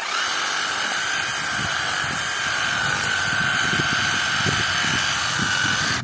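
Parkside Performance PSSAP 20-Li D5 cordless reciprocating saw running at a steady whine while its blade cuts through thin woody stems at ground level, with irregular knocks from the blade in the wood. It starts at once and runs for about six seconds before stopping.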